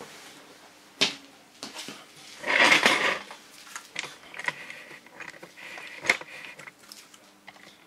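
Clicks and a short clatter of small hard plastic parts being handled, with the loudest rattle about two and a half seconds in: a hair clipper and its attachment combs being picked up and readied before a 6 mm guard comb is fitted.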